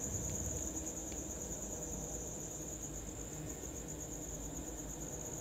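A steady, high-pitched, finely pulsing trill, typical of a cricket, over a faint low hum.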